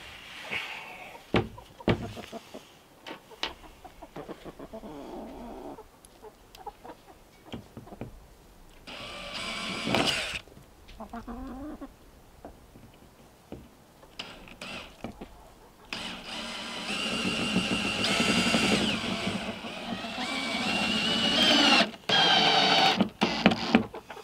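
Cordless drill driving screws into a plywood coop door and its hinge, in a short run about ten seconds in and a longer spell in the second half, between knocks of handling the door. Chickens clucking alongside.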